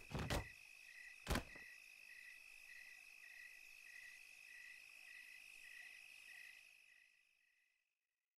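Faint crickets chirping, about two chirps a second, fading out near the end, as night ambience. Early on there are a few sharp knocks, the loudest about a second in.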